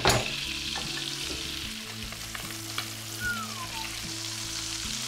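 Butter sizzling and foaming in a steel frying pan around a whole plaice as it is basted with a metal spoon. The spoon clinks sharply against the pan just after the start, and a short falling squeak follows about three seconds in.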